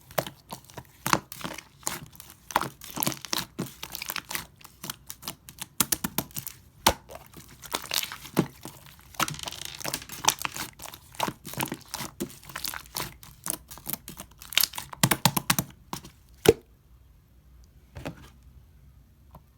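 Pink clear slime being squished and handled by hand: a dense run of sticky clicks and pops that ends with one sharp pop about three-quarters of the way in, after which the sounds all but stop.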